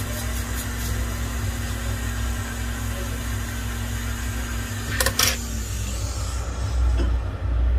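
Hot air rework station blowing steadily with a motor hum while it reflows solder paste into balls through a BGA reballing stencil. About five seconds in there are a couple of clicks, and then the airflow and hum die away.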